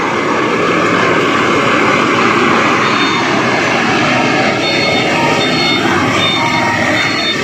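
Heavy truck's diesel engine running loudly at close range, a steady, unbroken rumble and hiss.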